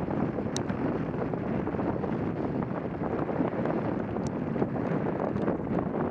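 Quest velomobile rolling fast downhill: a steady rumble of tyres and enclosed shell on the road, mixed with wind on the microphone. A few sharp ticks or rattles come through, one about half a second in and another a little after four seconds.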